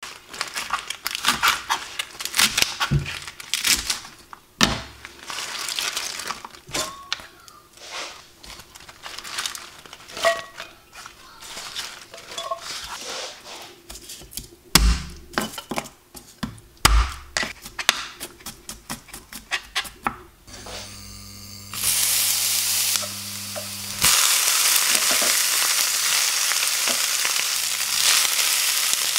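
A knife knocking, chopping and scraping on a plastic cutting board, with leaves being handled between strokes. About twenty seconds in a low hum starts; shortly after, cabbage leaves go into hot oil in a frying pan and sizzle loudly and steadily while being turned with a spatula.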